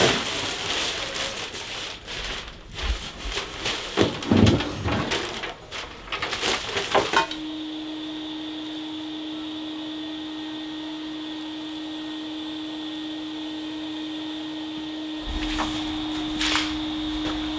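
Irregular clatter and knocks of trash and debris being handled, then a vacuum cleaner running steadily with a constant hum from about seven seconds in.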